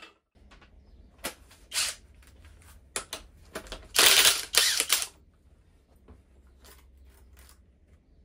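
Impact wrench hammering in short bursts as it loosens bolts on the front cover of a Mazda 13B rotary engine: a few quick blips, then one longer, louder burst about four seconds in.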